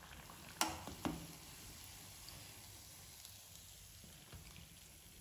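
Bread pakoras frying in hot oil with a faint, steady sizzle. Two sharp knocks come about half a second apart near the start.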